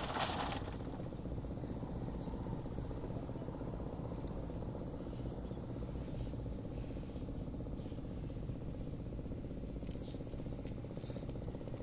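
Light rustling and faint scattered clicks as hands work a fine nylon fishing net, picking out small fish, over a steady low rumble. The loudest rustle comes right at the start, and a few sharper clicks come near the end.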